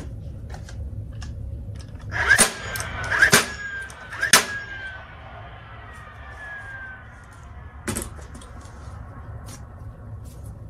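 Cordless DeWalt XR stapler firing staples through upholstery fabric into a stool seat: sharp shots about two, three and four seconds in and once more near eight seconds, with a faint falling whine after the first three.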